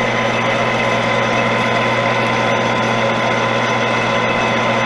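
Metal lathe running steadily, its motor and gearing making an even hum with a few steady whining tones.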